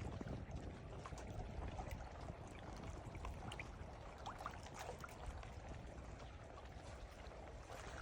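Ocean water sloshing and trickling, with small splashes and spatters over a low rumble.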